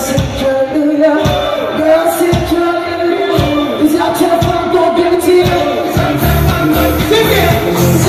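Live band playing through a large PA: a male singer over electric guitars and drums. The bass and drums get heavier about six seconds in.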